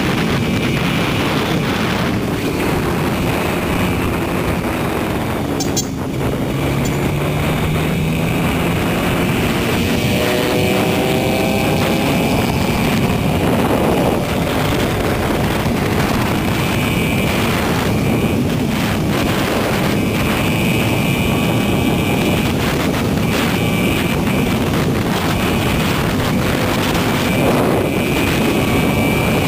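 Yamaha R15 single-cylinder engine pulling hard at speed under heavy wind noise on the microphone. Its pitch climbs after a short dip about six seconds in, and again a few seconds later, as it accelerates through the gears.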